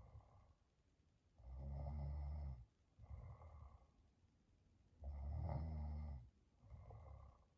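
A sleeping woman snoring: two loud, low snores about three and a half seconds apart, each lasting about a second and followed by a quieter breath.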